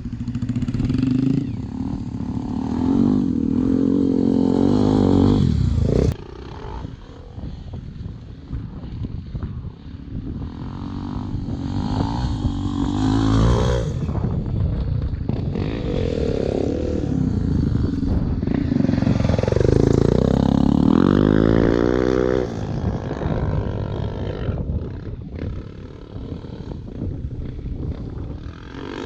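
Off-road dirt bikes revving up and down as they ride the track, the engine pitch climbing and dropping with each throttle change. The engine sound cuts down sharply about six seconds in, and one bike passes close around twenty seconds in, its pitch rising then falling.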